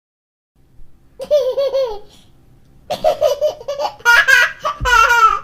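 A baby laughing: after about a second of silence, a short run of high-pitched laughs, a pause, then a longer run of laughs whose pitch climbs toward the end.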